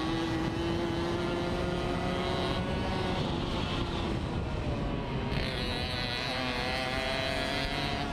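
Racing moped's small engine running hard at high revs from the rider's own machine, its pitch rising and dipping with the throttle through the bends. The note changes about five seconds in, then climbs again.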